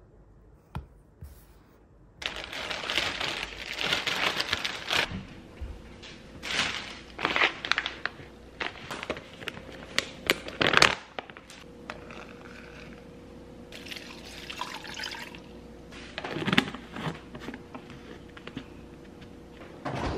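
Water pouring and splashing for a few seconds, then the rustle and crinkle of a paper coffee pouch being handled and torn open, with a faint steady hum coming in about halfway through.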